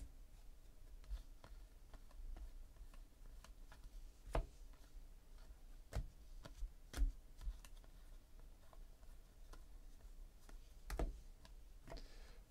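Trading cards being flipped through one at a time in the hand: faint scattered clicks and snaps of card against card, with a few sharper ones near the middle and about a second before the end.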